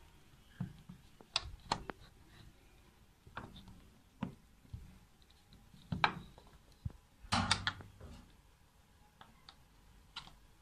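Flat screwdriver and hinge parts knocking and clicking against a PVC window sash and its metal hinge in irregular bursts, loudest in two clusters past the middle. The hinge is being worked loose to open a sash stuck shut by a broken espagnolette that no longer opens when the handle turns.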